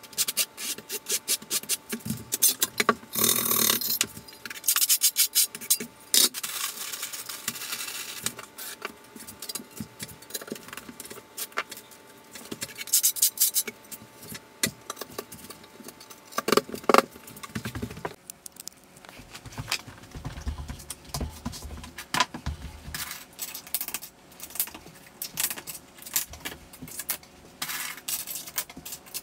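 Rapid clinking and scraping of tile-setting work: a steel trowel in thinset, porcelain tiles being set and plastic tile-leveling clips and wedges being handled. The background changes abruptly past the middle.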